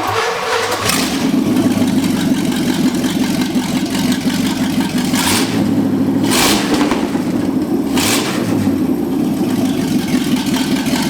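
A freshly rebuilt small-block Chevy 305 V8 catches about a second in on its first-ever start. It then runs steadily, with three brief louder surges of revving.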